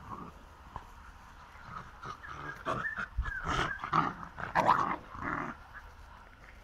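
Puppies growling while play-fighting, with a run of loud growls from about two seconds in until about five and a half seconds.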